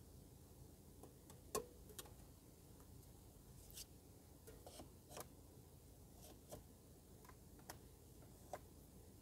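Near silence with about ten faint, scattered clicks and light knocks, the sharpest about a second and a half in: a drinks can and a paper cup being set into a plastic cup holder on a car's centre console.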